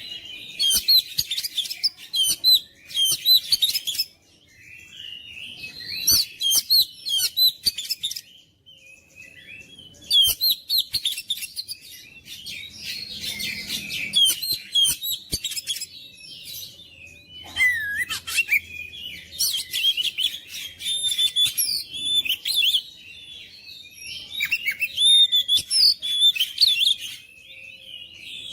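Oriental magpie-robin (kacer) singing in bursts of rapid, varied whistles, chatters and trills, with short breaks between phrases.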